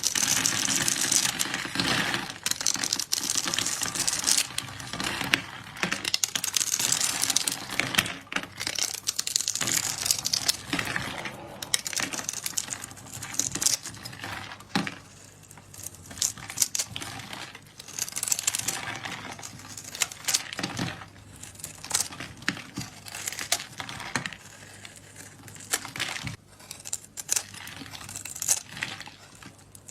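Dense crinkling and crackling made up of many small clicks, louder through the first half and thinning out to sparser crackles later.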